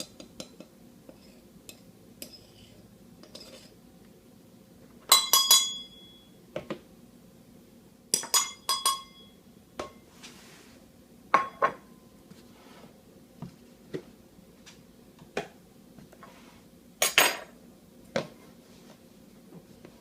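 Measuring cups and a utensil clinking and knocking against a mixing bowl as flour, sugar and salt are measured in and mixed. The clinks come in several short clusters with a brief ring after each, the loudest about five seconds in and again near the end.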